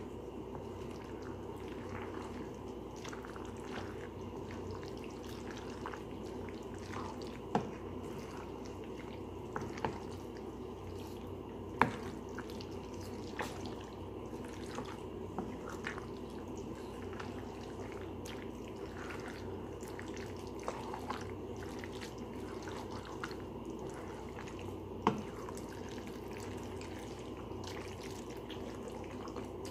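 Fettuccine being stirred and tossed in a creamy sauce in a frying pan: wet squelching and dripping, with a utensil now and then clicking against the pan, over a steady low hum.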